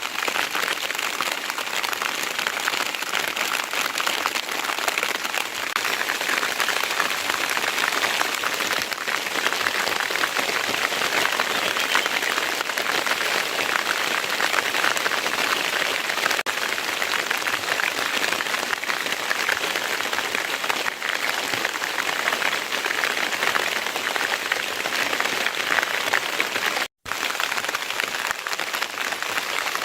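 Steady rain falling, an even hiss, with a split-second dropout near the end.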